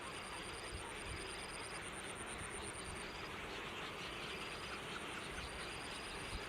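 Outdoor ambience: a steady hiss with a very high, fast-pulsing trill that drops out about halfway through and comes back near the end. A lower high-pitched trill repeats every second or so.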